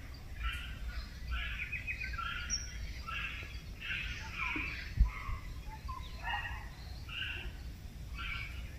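Several small birds chirping and calling in short phrases over a low background rumble, with a single thump about five seconds in.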